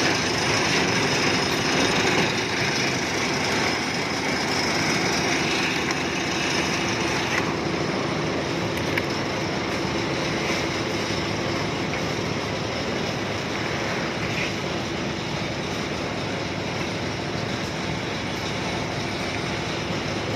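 Construction machinery running steadily: a loud, continuous mechanical noise with a steady hum under it. The higher hiss drops back suddenly about seven seconds in.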